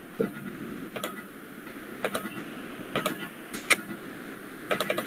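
Sharp clicks about once a second, with a quick cluster of several near the end, over a steady low background rumble.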